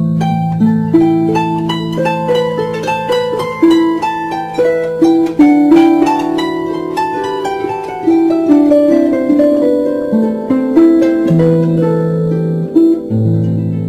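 Background music: a slow melody of plucked-string notes, harp-like, ringing over held low bass notes.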